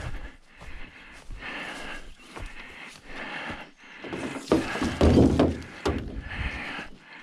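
A man breathing hard and rhythmically from heavy exertion, with a loud thump and clatter about five seconds in.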